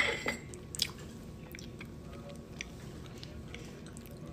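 Someone chewing a mouthful of raspberry cake, with small sharp mouth clicks scattered through and a couple of louder clicks in the first second.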